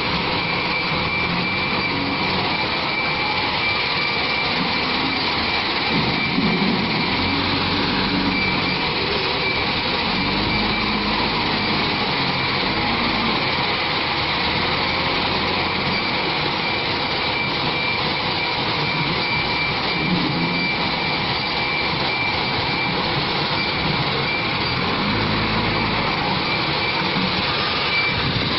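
JCB backhoe loader's diesel engine running steadily while working, its low note rising and falling with the load every few seconds, with a steady high whine over it.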